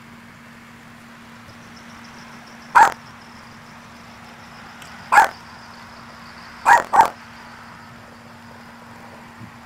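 Small Maltese dog barking at her own reflection in a glass door: four short, sharp barks, one nearly three seconds in, another about two seconds later, then a quick pair. A faint steady hum runs underneath.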